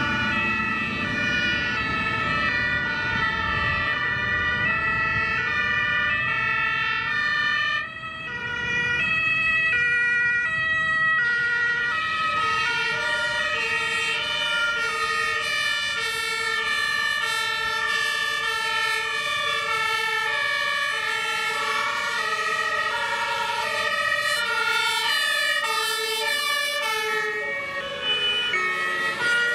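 Several German fire engines' two-tone sirens (Martinshorn) sounding at once. Each alternates between a high and a low note, and the horns overlap out of step with each other, with some truck engine rumble at the start.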